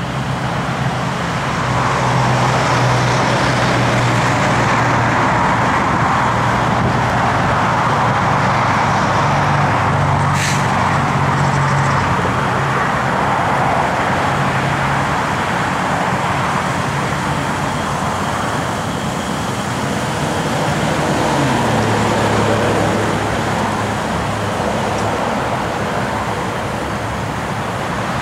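Road traffic going by, a steady rush that swells and fades as vehicles pass, under a low engine hum that shifts in pitch. A single sharp click comes about ten seconds in.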